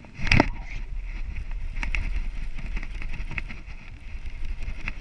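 A sudden loud jolt about a third of a second in as the hook is set on a bass, then the baitcasting reel being cranked while the fish is fought: a steady whir with scattered clicks over a low rumble.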